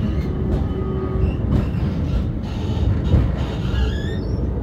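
Tram running along its rails, heard from on board: a steady low rumble of wheels and running gear. A few short, high squeaks come near the end.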